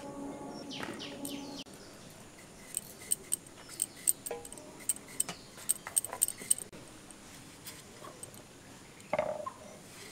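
A knife cutting potatoes and eggplant: an irregular run of quick, sharp taps of the blade through the vegetable, in the middle of the stretch. Before it, a steady low hum cuts off abruptly about a second and a half in, and a single dull thud comes near the end.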